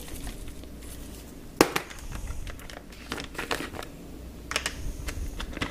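Zip-top plastic bag crinkling as it is handled while spice rub is shaken in from a jar, with a few sharp clicks and taps, the loudest about one and a half seconds in.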